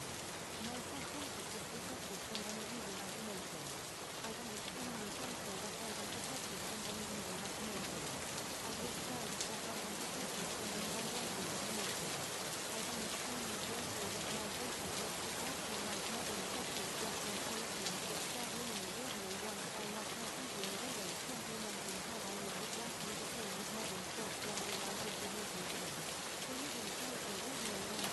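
Steady rain sound, an even hiss of falling rain with no breaks, with a faint voice mixed underneath it.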